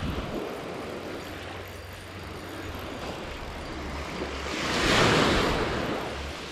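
Small waves washing up onto a sandy beach, one swelling and breaking about five seconds in, over a low steady rumble.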